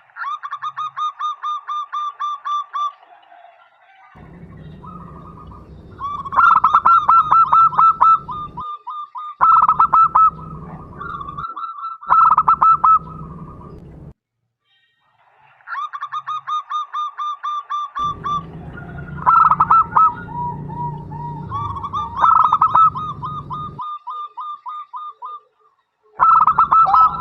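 Zebra dove (perkutut) song: rapid trains of short, nasal cooing notes in repeated bouts with pauses between them, used as a lure call to set other zebra doves singing. A low rumble sits under several of the bouts.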